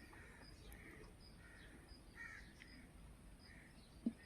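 Faint bird calls, short and repeated every half second or so, with a sharp click near the end.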